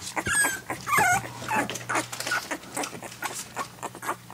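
Nineteen-day-old puppy eating soft gruel: a few high squeaks and whimpers in the first second, then wet smacking and lapping clicks.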